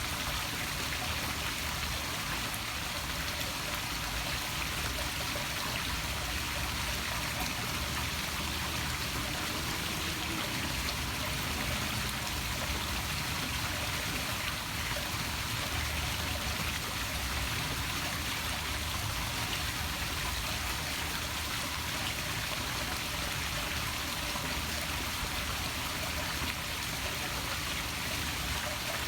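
Small poolside waterfall splashing steadily into a swimming pool.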